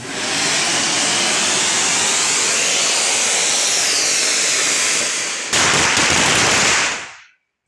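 Ground fountain fireworks spraying sparks with a loud, steady hissing rush. About five and a half seconds in, an edit cuts to another fountain, a little louder, which dies away shortly before the end.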